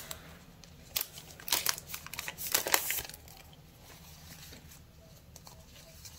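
Sticker sheets and their packaging rustling and crinkling as they are handled, in a few short bursts during the first three seconds, then only faint handling.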